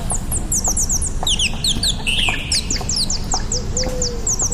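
Many small birds chirping rapidly and continuously, with short falling peeps overlapping one another over a steady low rumble.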